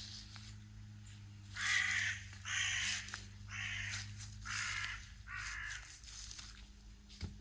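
A crow cawing: five harsh caws about a second apart.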